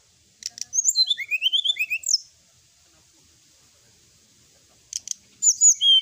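Brown-chested jungle flycatcher singing: two bursts of quick, sweeping whistled notes, each opening with a few sharp clicks. The first comes about half a second in and lasts under two seconds; the second starts near the end.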